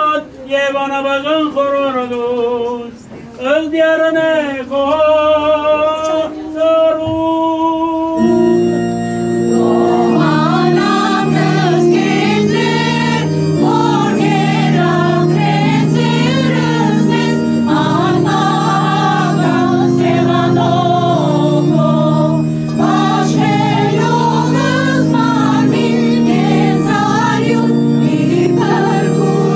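Armenian liturgical hymn: a single voice chants alone for about eight seconds, then a women's choir comes in over sustained organ chords.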